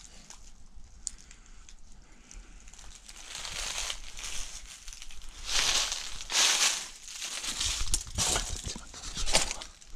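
Crunching and rustling noise in several uneven swells, starting about three seconds in and loudest near the middle.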